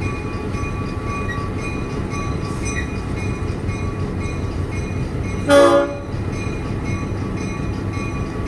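Diesel locomotive running as heard from inside its cab while it rolls slowly, a steady rumble with a faint constant whine above it. A little past halfway a locomotive horn sounds once, a short blast of about half a second and the loudest sound.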